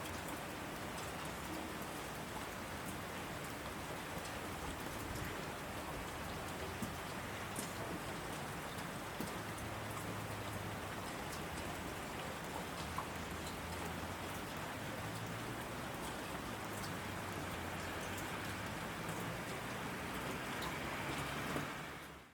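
Heavy rain falling steadily on asphalt, a dense even patter with scattered sharper drop ticks. It fades out quickly right at the end.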